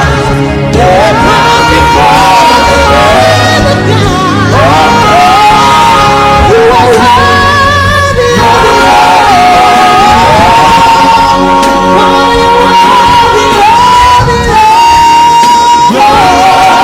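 Gospel worship music: a singing voice holds and glides between long notes over full band accompaniment.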